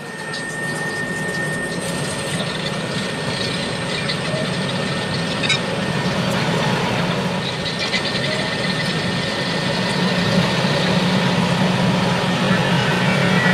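CNC lathe running as a turret tool faces the end of a steel disc under flood coolant: a steady machine hum with the hiss of the coolant spray and cutting.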